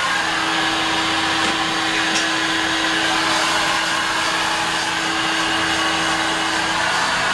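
Steady rushing noise of ocean surf breaking along a beach, with a faint steady hum that stops near the end.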